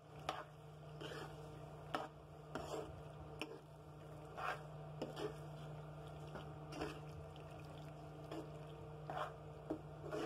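A spoon stirring penne through thick, creamy white sauce in a pan: wet squelching with short spoon-on-pan scrapes and clicks at uneven intervals. A steady low hum runs underneath.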